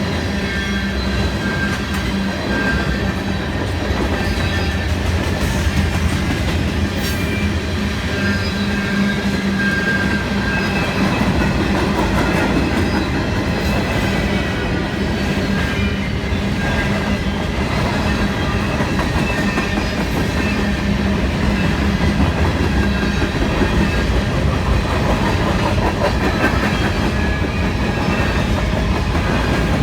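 CSX freight train rolling past, a steady run of wheel and railcar noise on the track, with a low hum in the first few seconds.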